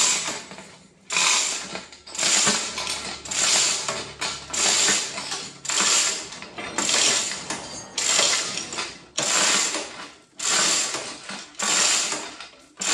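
Manual chain hoist (chain block) being hauled hand over hand, its chain rattling and clattering through the block in a regular rhythm of about one pull a second, as it lifts a heavy diesel engine.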